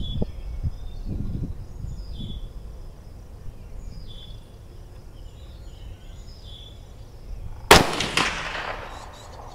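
A single shot from a Mossberg 640 KD bolt-action .22 Magnum rifle near the end: a sharp crack with an echo trailing off over about a second.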